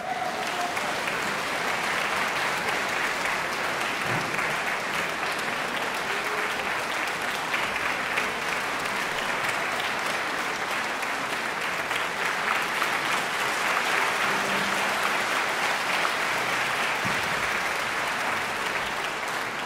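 Audience in a concert hall applauding: many hands clapping in a dense, steady patter.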